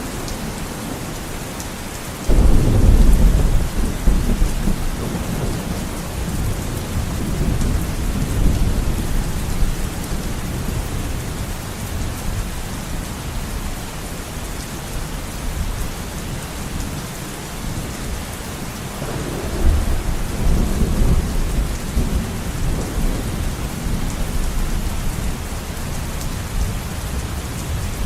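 Heavy rain beating on a window in a steady hiss, with thunder: a sudden low rumble breaks about two seconds in and rolls on for several seconds, and a second roll of thunder comes about two-thirds of the way through.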